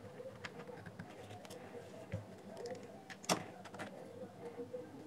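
Small clicks and taps of a screwdriver and plastic speaker parts being handled on a workbench, with one sharper knock a little after three seconds in.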